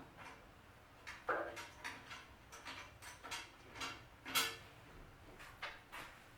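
Small metal parts and tools being handled during disassembly: about a dozen irregular light clicks and knocks, some with a brief metallic ring, the loudest a little after four seconds in.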